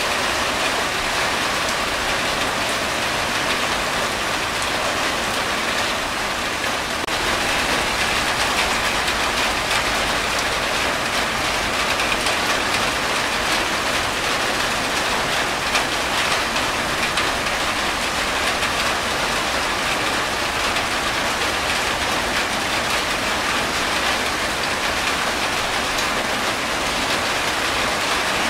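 Steady rain falling on a corrugated tin roof, with water streaming off the roof's edge; a dense, even hiss that gets a little louder about seven seconds in.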